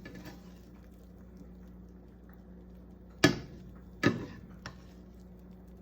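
Kitchenware knocking: two sharp knocks about a second apart, then a lighter one, over a faint steady hum.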